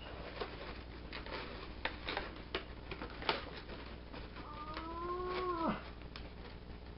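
Light clicks and taps of power coins and a clear plastic blister tray being handled, then a single drawn-out pitched call lasting about a second that drops off sharply at its end.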